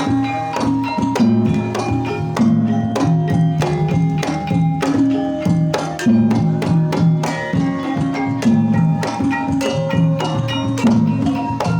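Banyumasan tayub gending played on Javanese gamelan-style struck instruments: a busy run of repeated melodic strokes over low notes, with hand-drum accents, in an instrumental passage between the sinden's sung lines.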